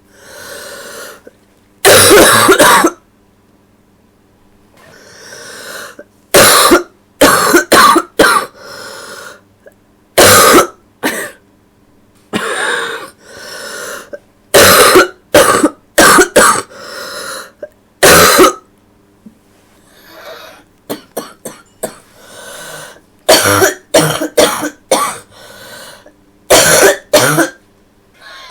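A sick girl coughing in repeated fits: a terrible wet cough, about eight bouts of hard coughs, several coming in quick runs of two to four, with quieter breaths between the fits.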